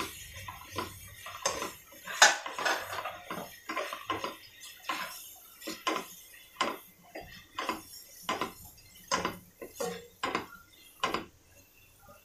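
Spatula stirring a thick onion-masala mixture in a nonstick kadai: irregular clacks and scrapes of the spatula against the pan, roughly two a second, the loudest a couple of seconds in.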